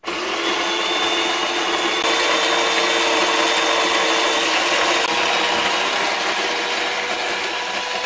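DeLonghi Magnifica espresso machine's built-in coffee grinder starting suddenly at the press of the brew button and grinding beans steadily.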